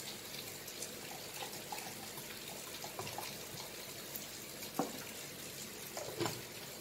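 Malta being poured into a blender jar: a faint trickle of liquid, with two soft knocks about a second and a half apart near the end.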